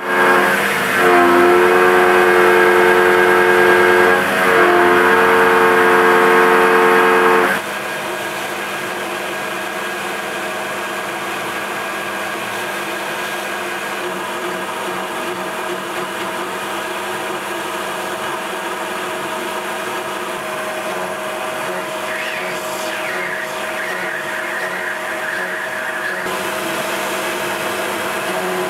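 Milling machine running an end mill through metal. It starts with a loud whining cut under coolant spray, then drops abruptly to a steadier, quieter cutting sound for the rest.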